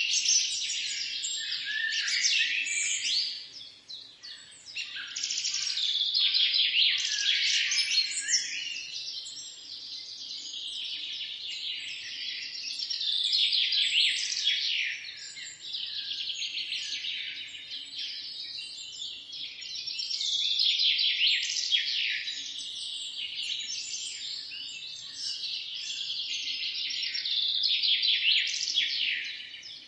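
Many birds chirping and singing at once, a dense overlapping chorus of high, quick calls. There is a brief lull about four seconds in.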